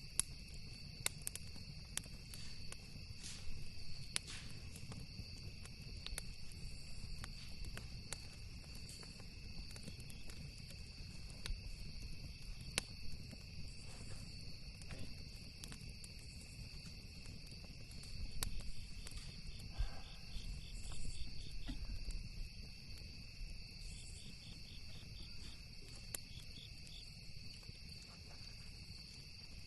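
Campfire crackling, with scattered sharp pops, over a steady chorus of crickets whose chirping pulses come and go in the second half.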